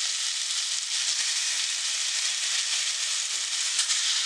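Marinated silver-bar (karli) fish pieces sizzling in hot oil in a frying pan, the wet marinade spitting as it hits the oil: a steady hiss with a few sharper crackles near the end.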